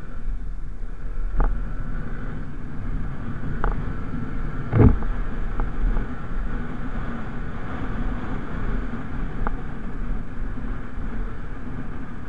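Motorcycle riding over a cracked, broken road surface: steady engine and road rumble with wind on the microphone. A few sharp knocks and rattles come as the bike hits the cracks, the loudest about five seconds in.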